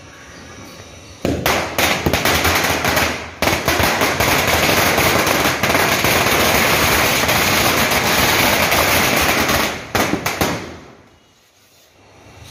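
A string of small firecrackers going off as a loud, rapid chain of bangs, starting about a second in and running for about nine seconds with a brief break a couple of seconds in, ending in a few scattered last pops.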